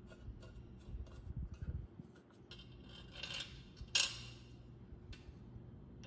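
Screwdriver working a screw into the cast-iron flue top of a water heater: metal scraping and small clicks, with one sharp metallic click about four seconds in.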